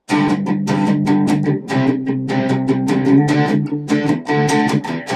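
Electric guitar played through an amp simulator: a rhythmic picked and strummed part that starts suddenly.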